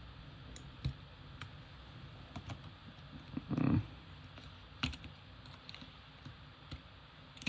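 Scattered small clicks and taps of tools and parts being handled while reassembling an iPhone XR, with one duller, louder knock about halfway through.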